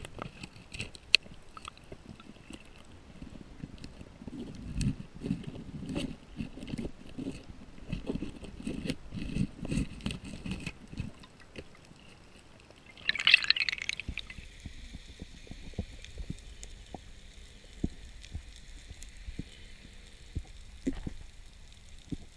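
Underwater sound picked up by a diver's camera: scattered sharp clicks and crackles, a stretch of low rumbling knocks in the first half, and a short loud hissing burst about thirteen seconds in.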